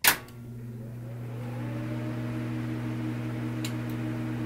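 Outro sound effect: a sudden hit, then a steady low electronic drone of a few held tones that swells slightly and holds, with a faint click near the end.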